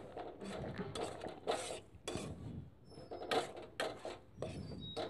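Metal spatula scraping and stirring powdered mustard oil cake around a kadai in repeated strokes, about one or two a second. The cake is being roasted on low heat and stirred without a break so it does not stick to the pan.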